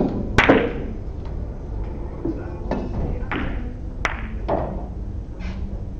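Russian pyramid billiard balls clicking together and knocking off the cushions after a shot. The first hard click near the start is the loudest, followed by about five fainter clicks spread over the next few seconds.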